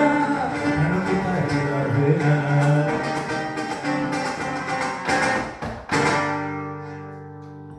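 Acoustic guitar strummed rhythmically, ending on a final chord about six seconds in that rings out and slowly fades.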